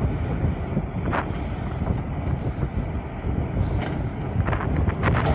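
Heavy earthmoving machines' diesel engines running with a steady low rumble, with wind buffeting the microphone.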